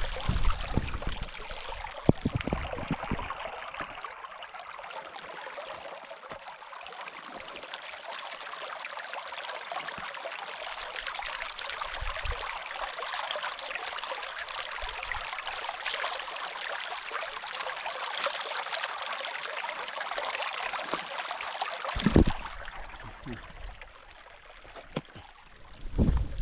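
Shallow river running over stones and rocks, a steady rushing babble of water. There are a few low bumps near the start and another about 22 seconds in, and the water sound drops away near the end.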